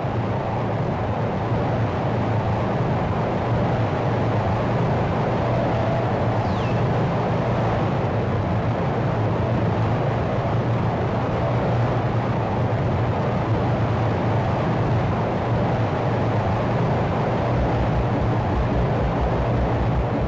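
Noise-music drone generated on a Behringer mixer: a dense, steady wash of noise over a strong low hum. A short falling whistle cuts through about six seconds in, and a low, rapid pulsing comes in near the end.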